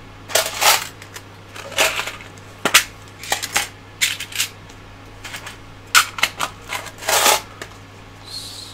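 Small metal tools and parts being picked up and handled on a tabletop: an irregular series of sharp clicks and short clattering rattles.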